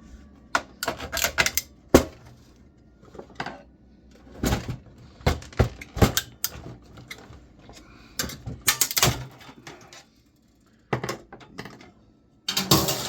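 Irregular plastic clicks, knocks and scrapes from prying and forcing the clipped-on plastic front bezel off an old desktop computer case. They come in several short clusters, with a brief lull shortly before the end.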